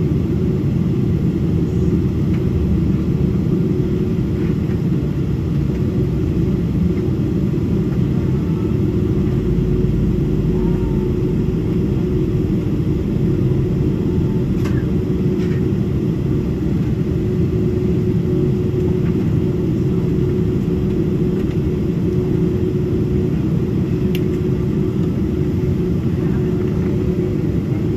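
Steady low rumble inside the cabin of a Boeing 767-400ER taxiing in at low speed, its twin GE CF6-80C2 turbofans at idle, with a steady hum that fades out near the end.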